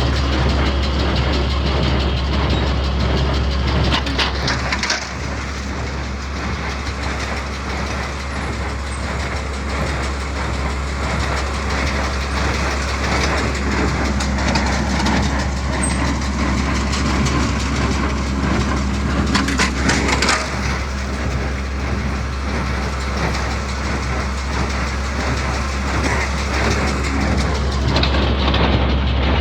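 Tractor engine running steadily while pulling a small square baler that is baling hay, its machinery clattering. Two brief louder clatters stand out, one near the start and one about two-thirds of the way through.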